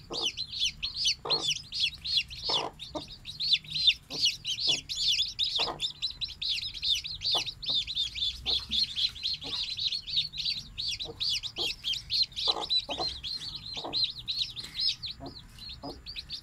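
Newly hatched chicks peeping rapidly and without pause, with a broody hen giving occasional short, low clucks among them.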